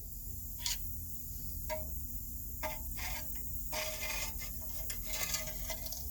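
Chrysler 300 front brake scraping and ticking irregularly, short metallic scrapes with a brief squeal in some of them, coming more often in the second half over a low rumble. The cause turned out to be a rock caught in the brake.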